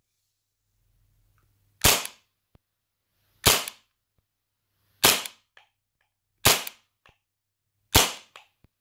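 Tokyo Marui Hi-Capa 5.1 gas blowback airsoft pistol firing five single shots through a chronograph, about one and a half seconds apart. Each shot is a sharp crack of gas and slide blowback, followed by a faint click.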